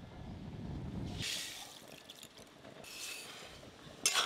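Granulated sugar being tipped from a bowl into a steel wok of water to make sugar syrup, a gritty pouring hiss about a second in and again near three seconds, with a sudden louder clatter near the end.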